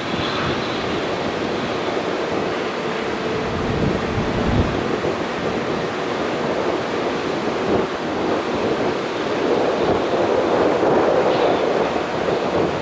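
Jet airliner's engines heard as a steady rushing noise that grows louder about nine seconds in, with a faint high whine at the start.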